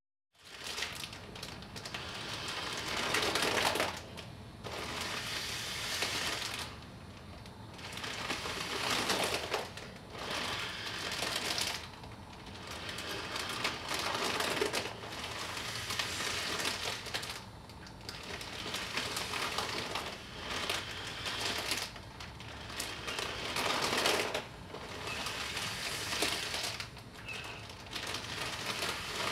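Clear plastic bag crinkling and crackling as two people breathe in and out through masks joined by it, in rising and falling swells about every two to three seconds.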